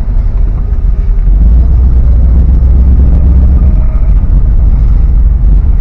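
Old Dodge pickup truck driving, a loud, steady low rumble of engine and road noise.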